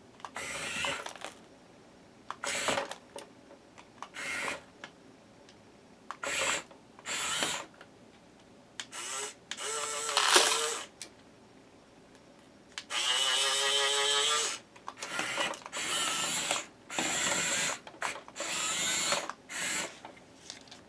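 Huina 1510 1/16-scale RC excavator's small electric motors whirring in short bursts of about a second as its functions are run, with one longer steady whine about 13 seconds in.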